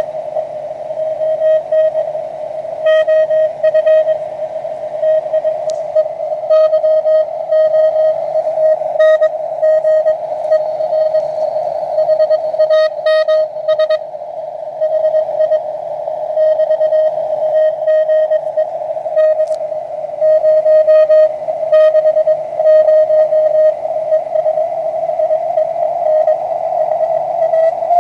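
Morse code (CW) on the 20 m ham band coming through a homebrew SW20-based QRP transceiver's receiver: a single steady tone keyed on and off in dots and dashes over a continuous hiss of band noise.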